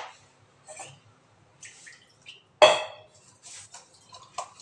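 Stainless steel cookware being handled: scattered light knocks and scrapes, with one loud ringing metallic clank a little past halfway.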